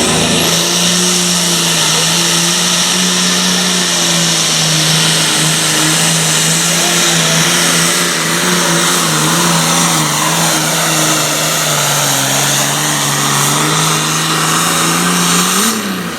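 Super farm pulling tractor's turbocharged diesel engine running flat out under load down the track. The engine holds a steady high note that wavers and sags a little in the middle, rises briefly just before the end and then drops off as the throttle comes back.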